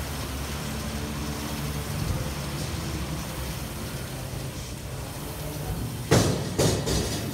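Air-resistance rowing machine: the flywheel fan whirring steadily as the rower pulls strokes. About six seconds in, two loud knocks come about half a second apart.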